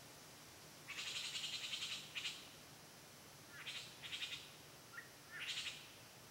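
A wild animal's rapid, rattling chatter call: a burst about a second long, then four shorter bursts, with a faint short chirp between them.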